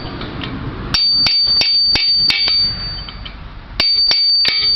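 A hammer striking a steel chisel driven under a weld on a Bobcat 843 Bob-Tach, to crack the rest of the weld loose. Two runs of sharp metal-on-metal blows, about five and then about four, each with a high ringing tone from the steel.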